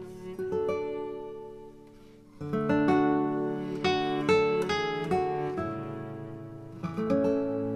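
Background music of plucked, strummed acoustic guitar. The playing fades briefly about two seconds in, then a louder phrase of plucked notes and chords starts.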